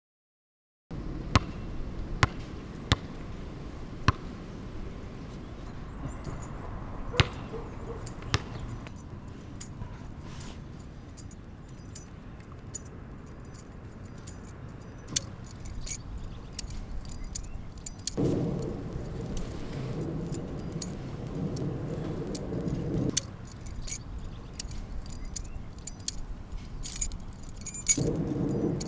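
Scattered light metallic clicks and clinks of a small object being fiddled with in the hand, over a low outdoor hum. A car passes with a low rumble for a few seconds past the middle, and again near the end.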